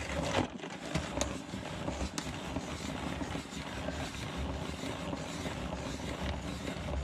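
Wind blowing across the microphone: a steady rushing noise with an uneven low rumble, and a few faint clicks in the first couple of seconds.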